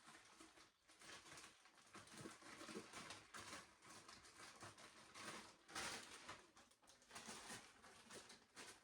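Near silence with faint plastic rustling and light irregular clicks: a Ziploc bag of frozen blueberries being handled, with a slightly louder rustle about six seconds in.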